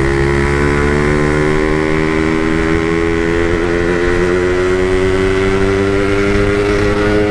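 Yamaha RX-King's 135cc two-stroke single-cylinder engine pulling under steady throttle through its stock-style side muffler, the pitch climbing slowly and evenly as the motorcycle gains speed.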